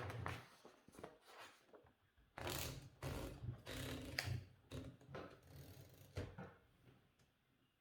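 Vintage typewriter being typed on: an irregular run of mechanical clacks and rattles from its type bars, stopping near the end.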